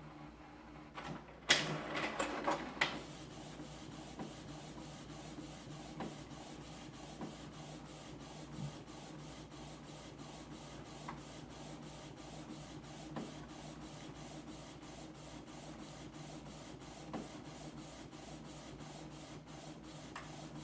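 Canon TS6220 inkjet printer printing a 4x6 glossy photo: a loud clattering burst about a second and a half in, then the mechanism running with a low hum and a steady, rapid clicking rhythm, hard enough to shake the table it stands on.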